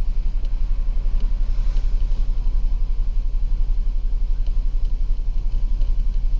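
2011 Jeep Wrangler's 3.8-litre V6 idling with a steady, pulsing low rumble. It is running with a misfire on cylinder 2, whose ignition coil is getting no firing signal.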